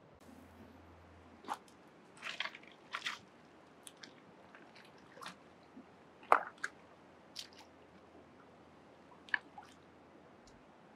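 Wet creek gravel being dug with a short-handled hand tool: about a dozen irregular crunches and clacks of the blade and stones knocking together, over faint steady stream noise. The loudest clack comes about six seconds in.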